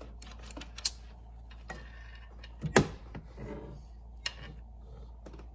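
Hand tools working a bolt: a few sharp, separate metallic clicks and knocks from a long socket extension and ratchet, the loudest about three seconds in, with faint rustling between them.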